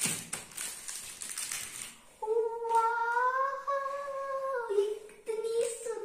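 Plastic wrapping of hair-clip cards crinkling as it is handled, then about two seconds in a girl's voice holds one long hummed note of delight, gently rising and falling, followed by a few shorter hummed notes.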